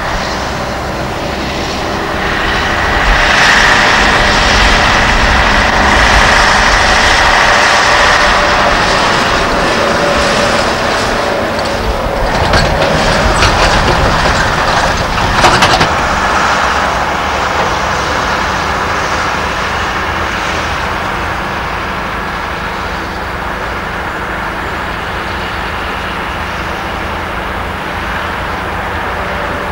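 Mercedes-Benz NG truck hauling a loaded lowboy trailer past, its diesel engine running and the trailer rattling. The sound grows louder a few seconds in, has a spell of clattering around the middle, then slowly fades.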